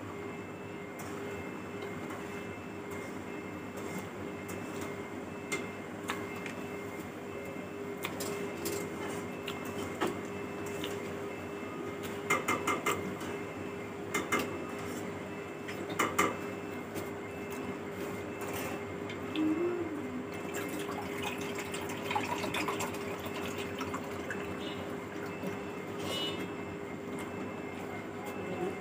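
Close-miked eating: wet mouth clicks, smacks and chewing, with fingers working through rice and fish curry on the plate. A handful of sharp clicks in the middle are the loudest sounds, over a steady background hum.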